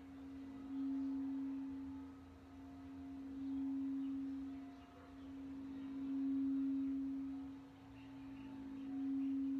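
Crystal singing bowl sung by rubbing a wand around its rim: one steady low tone that swells and fades every two to three seconds, with faint higher overtones.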